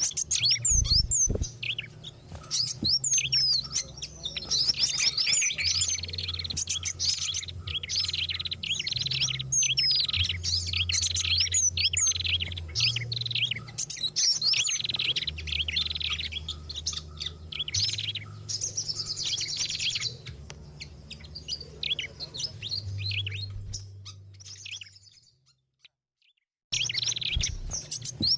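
Dense, noisy chattering of several small songbirds at once, rapid high chirps and trills overlapping: a bird-lure recording mixing the calls of species such as pied fantail, prinia and flowerpeckers. The calls fade out about 25 seconds in, stop completely for a moment, then start again near the end.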